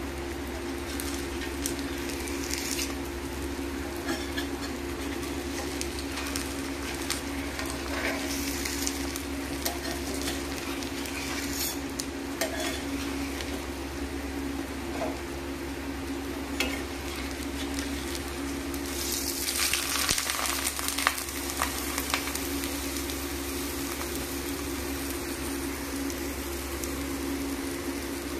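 A jaggery-and-flour pancake frying in oil on a hot tava, with a steady sizzle and small scattered pops over a constant low hum. The sizzle swells louder for about two seconds roughly two-thirds of the way through.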